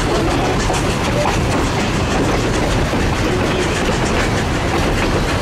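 Durango & Silverton narrow-gauge passenger train running: a steady rumble of coach wheels on the track with clickety-clack from the rail joints.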